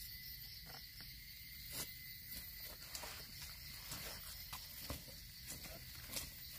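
Steady chorus of insects at a high pitch, with a few scattered light crunches and snaps of footsteps on dry leaf litter and twigs.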